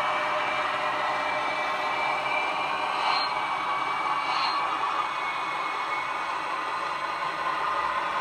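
Roco H0-scale model of the ČD 'Taucherbrille' diesel locomotive running along the layout track, giving a steady whirring running sound. Two brief high sounds come about three and four and a half seconds in.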